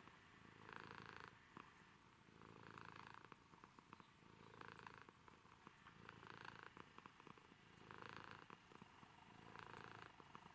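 Domestic cat purring faintly while being stroked, the purr swelling and easing with each breath, about once every two seconds.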